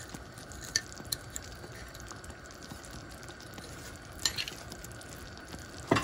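Thick peanut dipping sauce simmering in a nonstick pan with a steady faint bubbling hiss, while a metal spoon stirs it and clicks against the pan a few times, loudest near the end.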